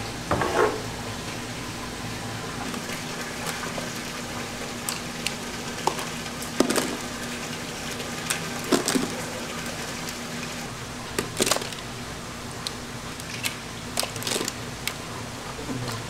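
Live clams clicking and clattering against each other as they are picked by hand from a tub of water into plastic colanders, in scattered sharp clicks with some water sounds. A steady hum runs underneath.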